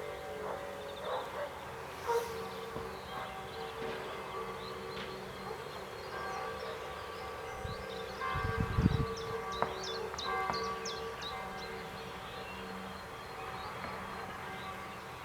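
Distant civil-defence sirens sounding across open country, their tones held steady with one sliding down in pitch at the start. Short high chirps come in about the middle, and a brief low rumble about 8 to 9 seconds in is the loudest moment.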